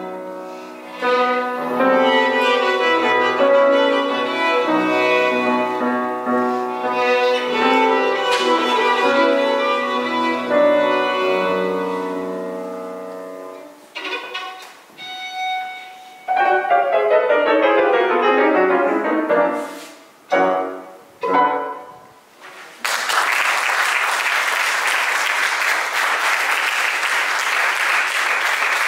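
Violin and grand piano playing: a full passage that fades away, then short separate phrases with quick rising and falling runs and a few closing chords. The music ends about 23 seconds in, and the audience breaks into steady applause.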